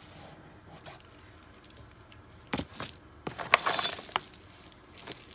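Loose costume jewelry clinking and jangling as a hand rummages through a cardboard box full of it. A few separate clicks come first, then a loud burst of jangling about three and a half seconds in.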